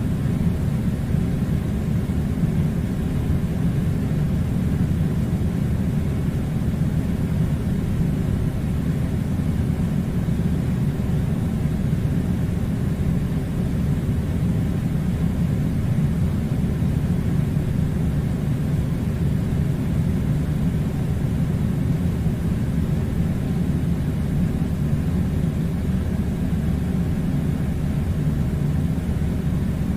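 Air conditioner running: a steady, even low rumble and whir that does not change.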